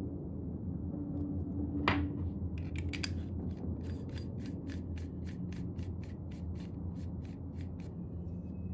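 Metal lightsaber hilt parts clicking as the emitter end is twisted by hand: one sharp click about two seconds in, then a quick even run of small clicks, about four to five a second, for some five seconds, over a steady low hum.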